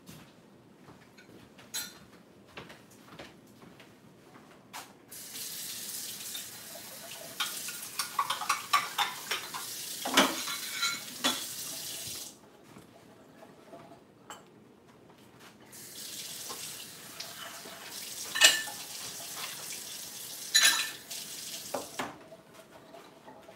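Kitchen tap running in two stretches of several seconds each, with dishes and utensils clinking while the water runs. Scattered light taps come between the stretches, and a sharp clink during the second stretch is the loudest sound.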